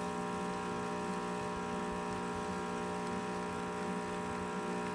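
Rancilio Silvia espresso machine's vibratory pump running with a steady hum while pulling a shot. The shot is running a little fast, which is put down to too little coffee in the basket.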